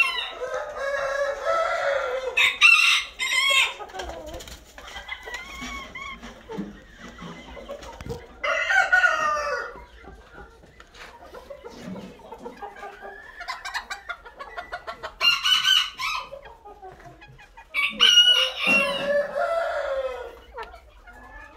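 Roosters crowing again and again, about five loud crows, with quieter clucking calls between them.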